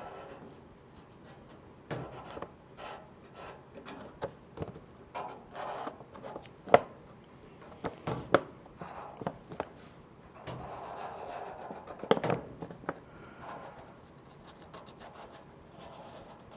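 Faint rubbing and scratching of a felt-tip marker drawn along a template edge on sheet metal, with scattered light clicks and taps as it is handled.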